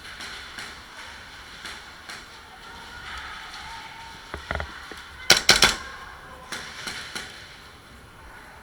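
Airsoft gunfire: a quick burst of about four sharp cracks just past the middle, with a few fainter clicks and knocks around it.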